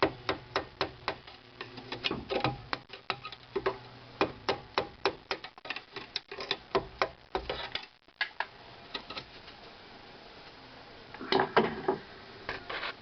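Irregular metal clicks and taps of a hand tool working a retaining clip off a car's rear brake line. They come thickly for about eight seconds, then go quiet apart from a short burst near the end.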